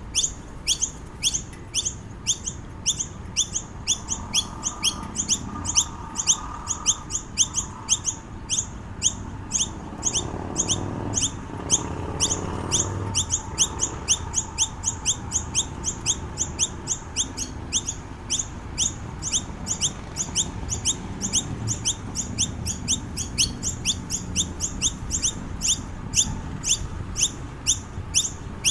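Noisy miner calling steadily: an unbroken string of short, high chirps, about three or four a second.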